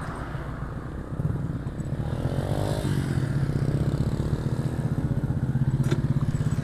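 Motorcycle engine running steadily, getting louder about a second in, with a brief rise and fall in pitch near the middle.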